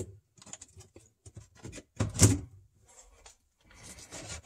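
Plastic clicks and rattles as a refrigerator evaporator fan motor and its wires are pulled out of the plastic fan shroud, with a louder clatter about two seconds in and a short scraping near the end.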